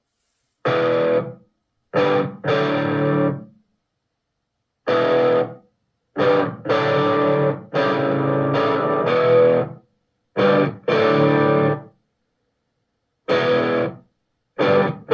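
Distorted electric-guitar rock music played through a JBL Go 4 portable Bluetooth speaker, in short stop-start phrases that cut off abruptly into silent gaps, with little deep bass.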